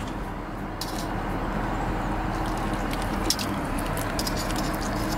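Recirculated mash liquid pouring from a hose onto aluminium foil laid over the grain bed in a brewing kettle, a steady splashing trickle. A magnetic-drive brewing pump hums low underneath.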